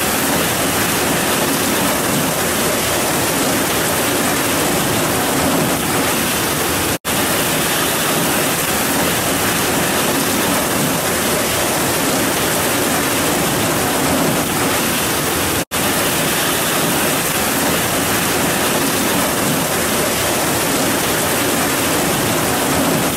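Heavy rain pouring down steadily, a dense even hiss that cuts out for an instant twice.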